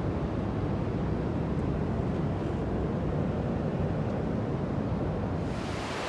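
Steady low rumbling noise. About five and a half seconds in it gives way to a brighter, even hiss like rushing water.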